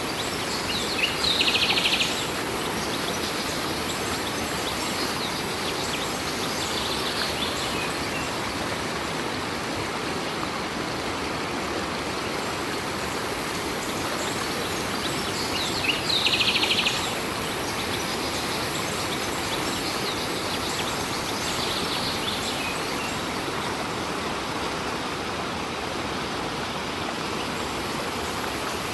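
A stream running steadily, with a bird giving a short, fast trill about a second in and again about halfway through, and fainter calls in between.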